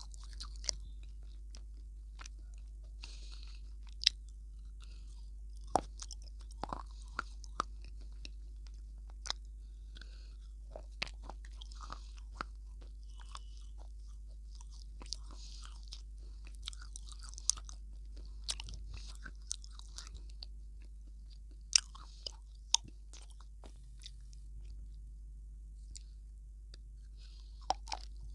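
Close-miked bites and chewing of a hard, brittle slab: sharp cracks and crunches at irregular intervals, over a steady low hum.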